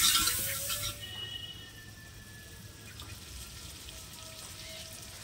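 Sliced onions sizzling in hot oil in a metal pot, loud for about the first second as they are stirred in, then settling to a quieter steady sizzle.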